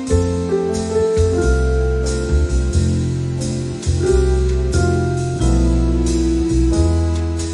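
Instrumental background music: held melody notes over a bass line that changes about once a second.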